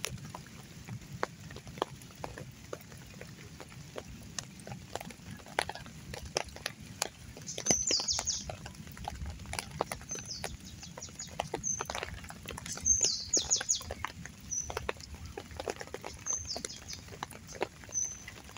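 A bird calling in several bouts of short, high chirps, the loudest sounds here, over the steady hiss of rain with many scattered drip taps.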